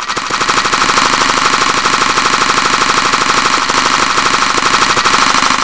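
Thirty Dollar Website's revolver gunshot sound effect, looped at a greatly sped-up tempo. Each shot is cut short by the next, so they run together into a loud, very fast, even rattle. It stops abruptly near the end.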